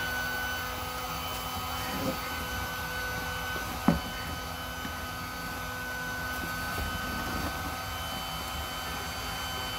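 Small portable electric air pump running steadily with a hum, inflating an inflatable kayak. A single knock about four seconds in.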